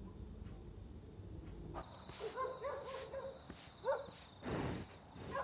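Low room hum, then an abrupt change about two seconds in to outdoor night ambience. A steady high-pitched drone runs under short, yelping animal calls, with a breathy rush of air a little past halfway.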